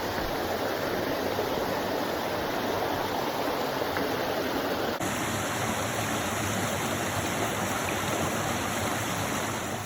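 A river rushing steadily. The sound's character shifts abruptly about halfway through, as at a cut.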